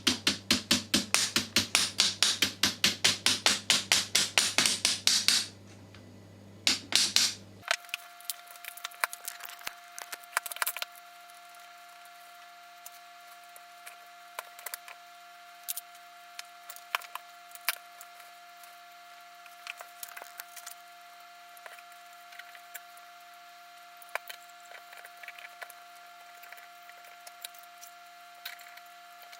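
Rapid back-and-forth rasping strokes of a hand tool on wood, about six a second, stopping about five seconds in, with a short second burst a little later. After that, only scattered light clicks and taps over a faint steady hum.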